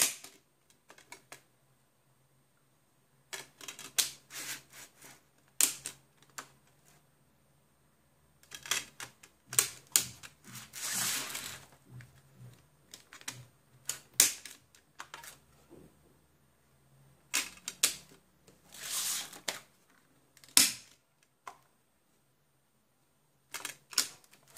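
Fold-out DVD case with plastic disc trays being handled: clusters of sharp clicks and taps, with a few longer sliding, rustling stretches between quiet pauses.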